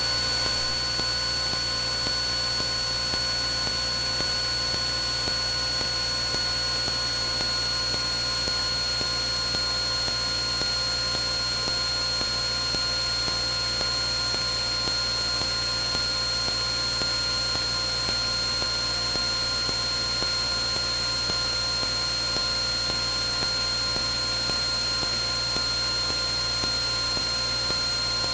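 Steady in-flight cabin noise of a Cessna 172N: engine and airflow blended into an even hiss, with a thin steady high whine over it.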